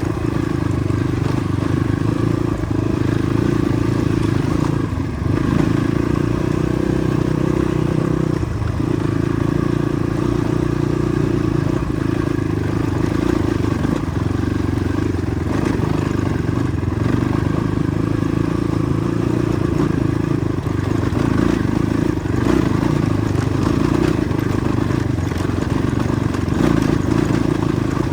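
Motorcycle engine running steadily while riding a rough off-road track, with a few brief knocks from the bumpy surface.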